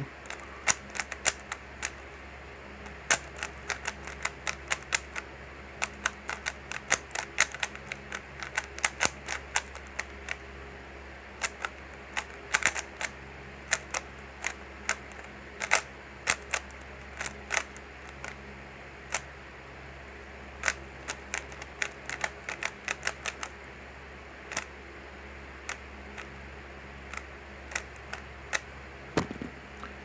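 3x3 Rubik's cube being turned fast by hand: irregular runs of sharp plastic clicks as the layers snap round, over a low steady hum.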